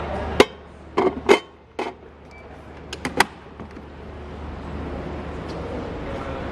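Sharp plastic clicks and knocks of a Tefal ActiFry air fryer's lid being pressed open and shut, about six in the first three seconds, over a steady shop hum.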